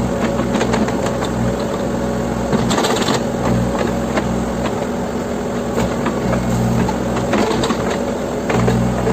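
Backhoe loader's diesel engine running steadily while working, with occasional knocks.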